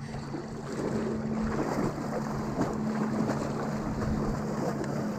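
Open-water ambience: wind buffeting the microphone over shallow river water lapping and splashing lightly around the wading anglers, with a steady low hum underneath.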